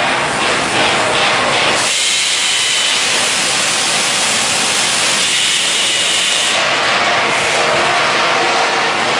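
Loud, steady hissing machinery noise of a galvanizing plant hall, with a low rumble that drops away about two seconds in.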